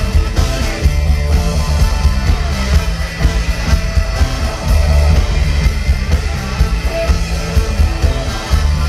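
Live rock band playing loudly, with electric guitars and bass guitar over a steady repeating bass line.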